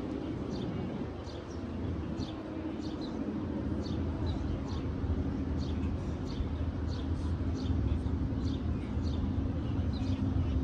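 Small birds chirping in short, high, quickly repeated notes over a steady low drone of traffic.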